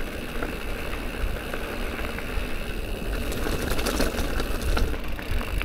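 Fat bike rolling along a gravel Land Rover track: a steady tyre rumble with chain and frame rattles and a few sharp clicks, and wind buffeting the microphone.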